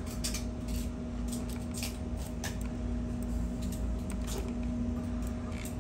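Steady electrical hum in a small room, with scattered short clicks and light handling noises.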